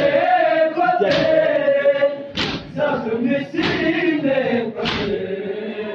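A large group of men chanting a Shia noha in chorus, with unison chest-beating (matam): a sharp slap from many hands together about every 1.2 seconds under the sung line.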